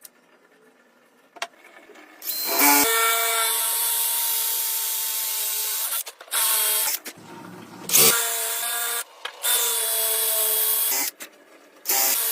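Electric power drill running at a steady whine, stopping and restarting several times with short pauses between runs, as if working into wood.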